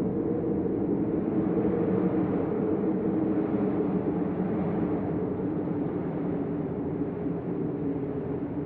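Deep, steady hurricane storm wind, a low rushing noise that swells slightly a couple of seconds in and eases a little toward the end.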